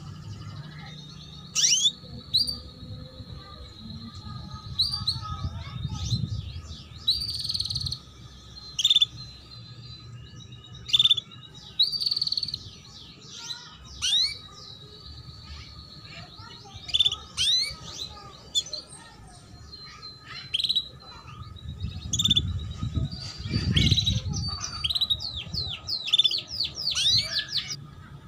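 Female canary in breeding condition giving short 'cuit cuit' chirps, each a quick downward sweep, sometimes single and sometimes in fast runs of several, at irregular gaps.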